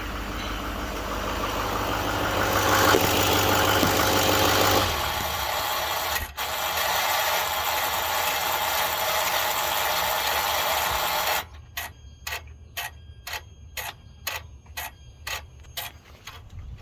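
Duramax LML 6.6 L V8 turbodiesel running under the hood; its low drone stops about five seconds in as the engine is shut off. A steady rushing noise carries on for several more seconds, then cuts off. A regular clicking follows, about three clicks a second, from a part the owner can silence by unplugging it.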